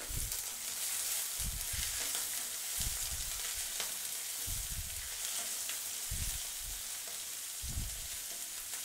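Chopped onion sizzling in hot oil in a nonstick pan, stirred with a wooden spatula that gives a soft knock or scrape every second or so.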